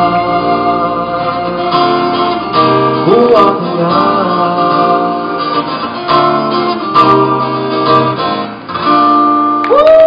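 Live acoustic band: a strummed acoustic guitar and double bass under male voices singing.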